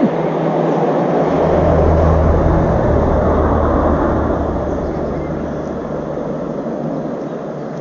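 A passing motor vehicle: a rushing engine and road noise with a low hum that swells to its loudest about two seconds in, dips slightly in pitch and then slowly fades away.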